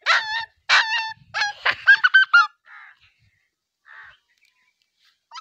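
Puppy crying: a quick run of high-pitched yelps and whines, each sliding in pitch, that stops about halfway through. A child nearby takes it for a puppy in pain.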